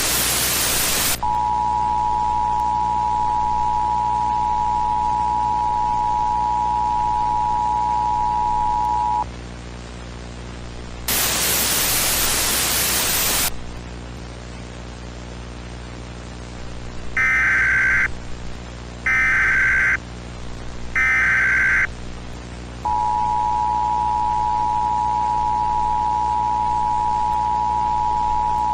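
Mock Emergency Alert System broadcast audio: a burst of static, then the EAS two-tone attention signal (two steady tones together) for about eight seconds, a second burst of static, three short SAME data-header bursts of warbling digital tones, and the two-tone attention signal again starting about 23 seconds in. A steady low hum runs under it all.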